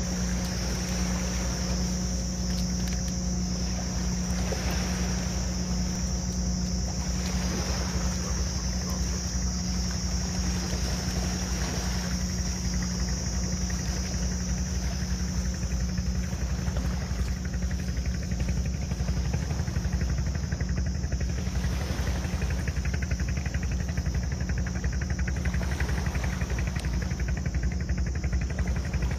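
A steady low motor drone that holds through the whole stretch, with a constant high hiss above it.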